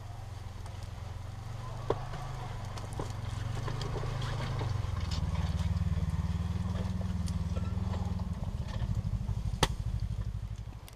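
A steady low rumble that swells midway and eases near the end, with a few sharp crackles from the wood fire burning in the pit beside the microphone.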